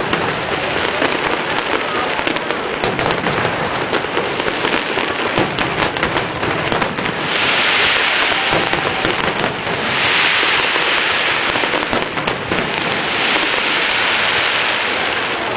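Fireworks display: a steady barrage of bangs and dense crackling. Three louder spells of hissing crackle begin about 7, 10 and 13 seconds in.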